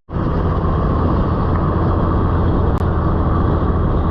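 Steady road and engine noise from a moving vehicle, a constant low drone under an even rush of tyre and wind noise, after a brief cut-out at the very start.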